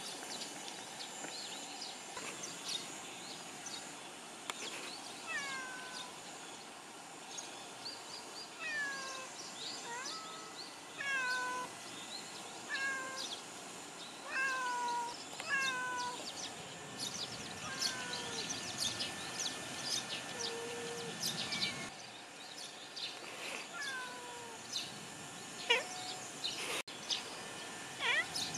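Cats meowing: a long series of short meows, each falling in pitch, starting about five seconds in and repeating every second or two until near the end.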